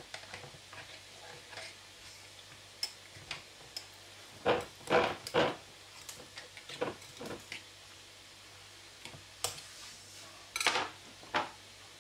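A metal knife blade tapping and scraping against the inside of a milk-filled glass jar as it is worked down the sides to let the milk sink through the pickle. Scattered light clicks, with two louder clusters of knocks: one about halfway through and one near the end.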